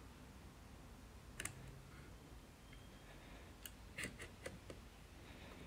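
Faint clicks and taps of polymer and metal parts as the CZ Scorpion EVO 3's lower receiver is fitted into the upper receiver: one click about a second and a half in, then a small cluster of clicks about four seconds in.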